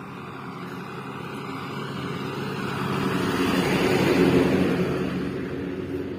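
A motor vehicle passing on the road. Its engine and tyre noise build up, are loudest about four seconds in, then fade as it goes by.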